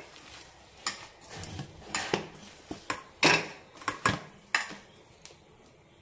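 Hand kneading damp poha (flattened rice) flour in a stainless steel bowl: irregular knocks and scrapes of hand and dough against the steel. The loudest comes a little past three seconds in, and it dies down near the end.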